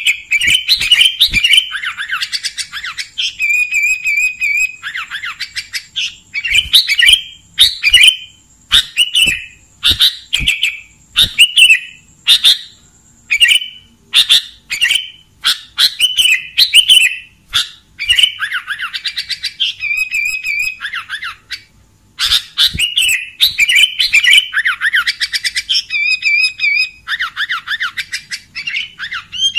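Sooty-headed bulbul (kutilang) singing clear, lively song: short phrases one after another with brief pauses between them, and a few longer warbling runs.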